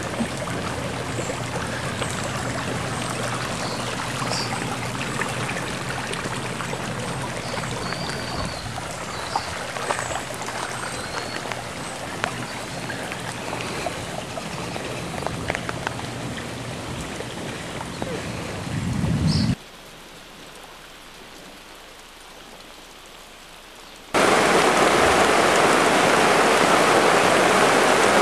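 Heavy thunderstorm rain falling steadily on waterlogged, flooded ground. About 19 seconds in it drops suddenly to a much quieter hiss, and some five seconds later it comes back far louder: rain pelting onto water pooled on a plastic tarp.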